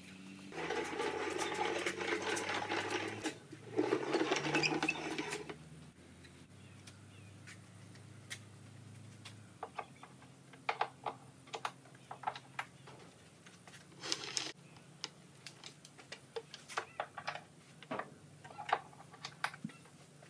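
Two bursts of rapid mechanical rattling, each a couple of seconds long, in the first half. Then scattered light clicks and knocks of equipment being handled, over a faint low hum.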